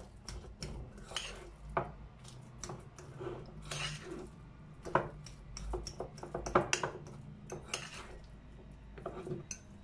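A fork scraping and clinking against a small ceramic bowl as mashed avocado, cheese and mayonnaise are stirred together: irregular taps and short scrapes, several a second.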